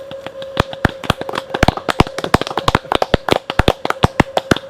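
A small group of people clapping, the claps separate and irregular, over a faint steady tone.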